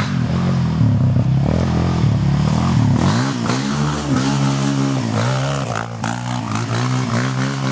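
Quad-bike (ATV) engine revving hard as it ploughs through a mud hole, its pitch rising and falling several times, with muddy water spraying up from the wheels.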